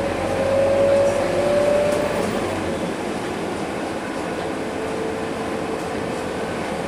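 Scania K230UB city bus running on the road, heard from inside the passenger cabin: its five-cylinder diesel engine and drivetrain, with a whine that rises slightly in pitch over the first two seconds while the bus pulls, then eases to a steadier running noise about three seconds in.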